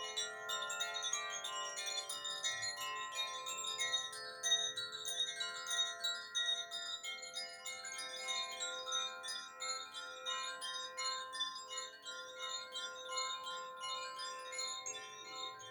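Koshi chimes ringing continuously. Their clappers tinkle constantly against the tuned rods, and the notes ring on and overlap into a shimmering wash.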